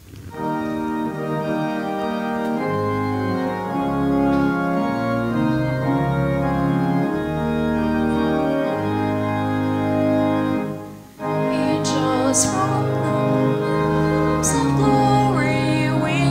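Organ playing sustained chords of a hymn, with a brief break about 11 seconds in before it resumes. Singing voices join the organ near the end.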